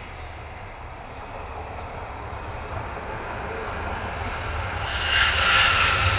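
Highway traffic soundscape: a steady deep rumble of vehicles that builds and swells into a loud rushing pass about five seconds in.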